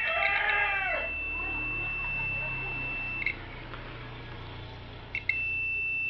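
Multimeter continuity beeper giving a steady high beep for about three seconds, then again near the end, as the probes bridge pins on the circuit board: the beep signals that the pins are shorted together. A rooster crows in the background, fading in the first second.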